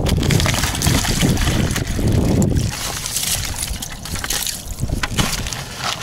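Water sloshing and splashing as a container of live bait fish is emptied into the water, with many small splashes and drips.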